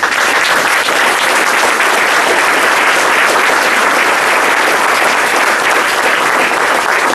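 Audience applauding, the clapping starting all at once and holding steady.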